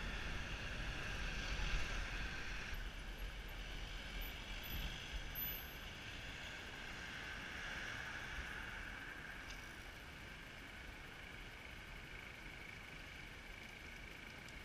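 Helmet-camera road sound: wind rumble on the microphone while cycling, then, after a cut a few seconds in, a quieter steady hiss of street and traffic noise while stopped at a red light.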